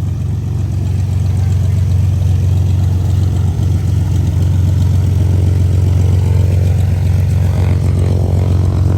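Small propeller airplane's engine running steadily and loud, a constant low drone that picks up a little more higher-pitched sound in the second half.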